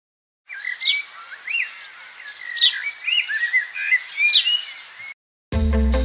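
Birds chirping and calling: three sharp whistles falling steeply in pitch, about a second and a half apart, among shorter chirps. The birdsong cuts off suddenly, and music starts just before the end.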